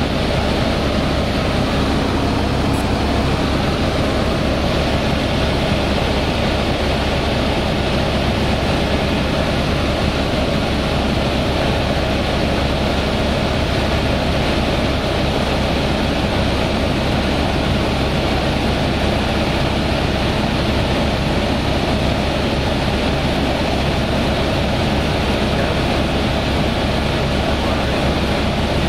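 Helicopter in flight heard from inside the cabin: the steady, loud drone of the rotor and engine.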